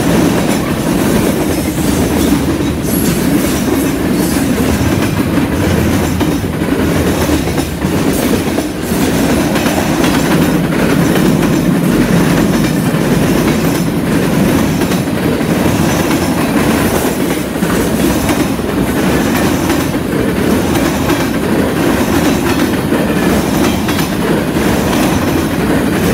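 Freight train cars rolling past at close range: a steady rumble of steel wheels on the rails with the clickety-clack of the wheels over the track.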